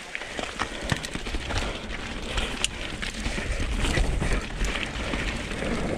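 Mountain bike rolling down a rough dirt trail: tyres running over dirt and roots with frequent sharp clicks and knocks from the bike, over a low wind rumble on the microphone.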